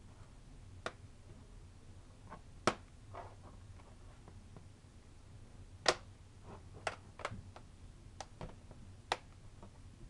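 Sharp plastic clicks and knocks as the Cr-48 laptop's bottom case is pressed and snapped back onto the chassis, and the laptop is handled. There are about eight separate clicks, the two loudest about three and six seconds in.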